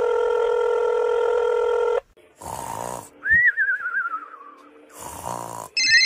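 A phone's calling tone, a steady held chord, sounds for about two seconds. Then come cartoon snoring sound effects, twice: a rough inhale followed by a wavering, falling whistle. Near the end, a phone's high ringtone starts over the second whistle.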